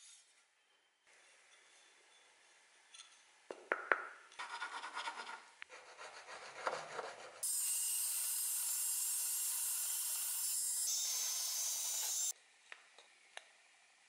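A wooden handle blank being cut on a band saw: a steady loud hiss for about five seconds that starts and stops abruptly. Before it come a few seconds of clicks and rubbing as the wood is handled.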